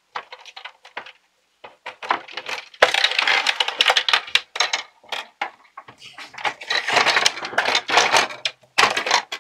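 Plastic parts of a toy pinball machine knocking and rattling as the playfield assembly is worked loose from its case by hand: scattered clicks at first, then busy irregular clattering from about three seconds in.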